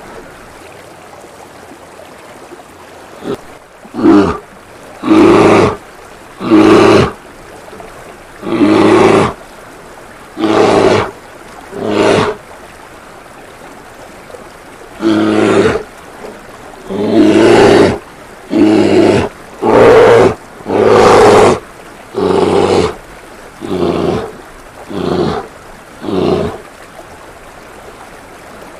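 Bear growls and roars: about fifteen short, loud calls, each under a second long, beginning about four seconds in and stopping a couple of seconds before the end, over a faint steady sound of running water from a fountain.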